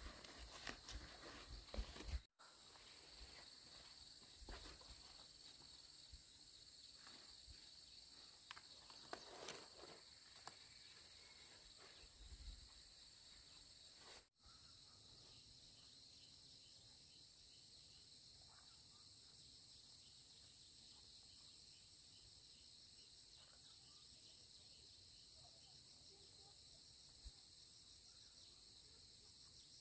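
Faint, steady, high-pitched chorus of insects. A few soft knocks and rustles come in the first couple of seconds and again around ten seconds in.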